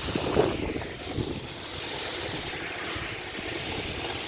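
Small wind turbine's propeller whirring at high speed in a gale, with wind buffeting and rumbling on the microphone.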